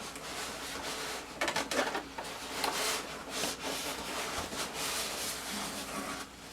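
Packaging and foam airplane parts being handled and pulled from a box: irregular rubbing, scraping and rustling, loudest about one and a half and three seconds in.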